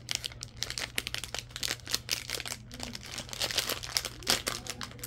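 Plastic foil blind bag crinkling in the hands as it is squeezed and worked at to get it open, a dense run of irregular crackles.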